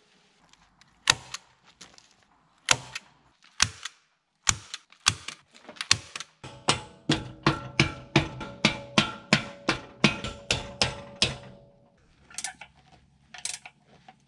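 Rubber mallet striking a steel boat-trailer bracket: a few spaced blows, then a quick run of about three blows a second, each leaving a metallic ring. A few lighter clicks follow near the end.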